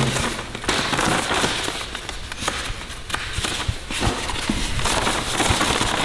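Paper assembly instructions rustling and crinkling as the sheets are handled and leafed through, a steady crackle of small clicks that comes and goes.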